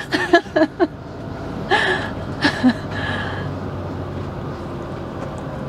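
Steady engine and road noise of a motorhome on the move, with an even low hum that settles in about halfway through.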